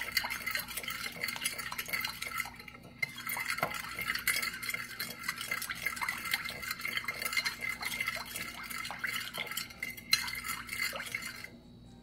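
Metal spoon stirring sugar-and-salt water in a white ceramic dish, with rapid small clinks and scrapes against the dish. There is a short pause about three seconds in, and the stirring stops just before the end.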